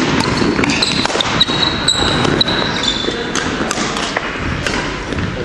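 Badminton rally: rackets striking a shuttlecock in sharp cracks at irregular intervals of about half a second to a second, with sports shoes squeaking briefly on the wooden court floor, mostly in the first half.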